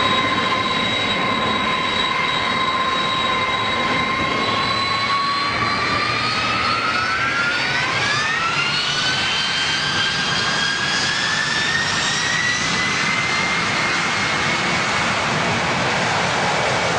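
Boeing 747 freighter's jet engines spooling up for takeoff: a steady whine over a rushing noise, rising in pitch about five to nine seconds in and then holding at the higher pitch.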